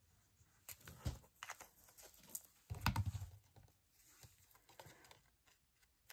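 Paper and craft supplies handled on a work table: scattered light taps and rustles, with a soft thump about three seconds in.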